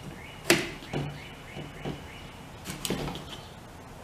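Danish Model 1915 long bayonet being unlatched and slid off a Krag-Jorgensen rifle's bayonet lug and muzzle ring: a sharp metal click about half a second in, then a few softer clicks and scrapes of steel on steel.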